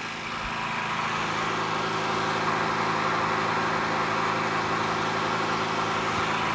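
Predator 9500 inverter generator's 459cc single-cylinder engine running steadily under heavy load, about 52 amps. It gets a little louder about a second in, then holds steady.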